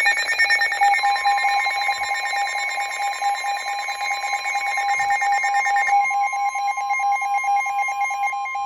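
Emergency Alert System alert tones: a loud, steady two-tone electronic signal, with the second, higher tone joining about a second in, over a fast repeating electronic pattern that changes around six seconds in.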